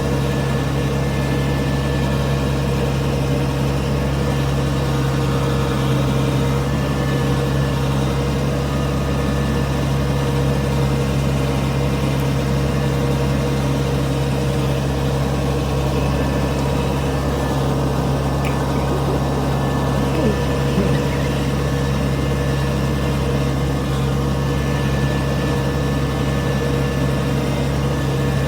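Combine harvester's diesel engine running steadily: an even, unbroken drone with a strong low hum.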